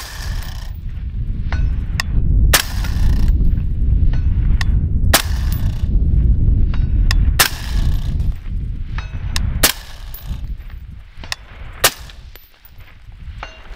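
Suppressed PRI Mk12 5.56 rifle with an 18-inch barrel and Allen Engineering suppressor firing about six shots, roughly one every two and a half seconds, each followed by a rolling echo. Fainter sharp rings of bullet hits on a steel plate come between the shots.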